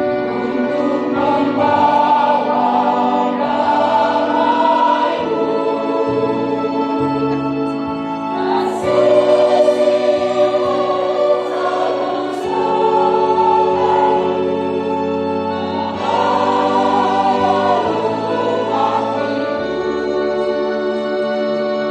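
Church choir singing a hymn, with sustained notes changing every second or two, heard close from among the singers.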